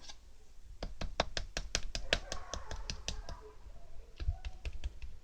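A quick run of light, sharp taps or clicks, about five a second, then a few scattered knocks near the end.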